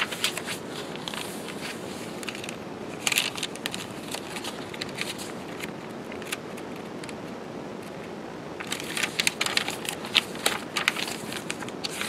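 Paper pages of a handmade junk journal, card stock and lined notebook paper, being turned and handled: crackly rustling in short spells, about a second in and around three seconds in, then a longer, busier spell near the end.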